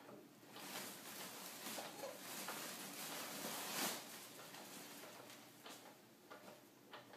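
Foil helium balloons faintly rustling and crinkling as they are jostled, with scattered light ticks. The rustling builds from about half a second in, is loudest just before four seconds in, then dies down to occasional clicks.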